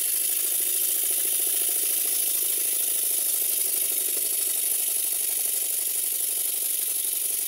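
Stuart Models Twin Launch twin-cylinder model steam engine running on compressed air: fast, even exhaust beats over a steady hiss of air. Its valve timing is being set on the eccentrics, and it is running smoothly.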